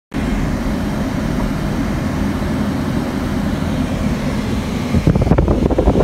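Car driving, heard from inside the cabin: a steady rumble of engine and road noise that grows louder and more uneven about five seconds in.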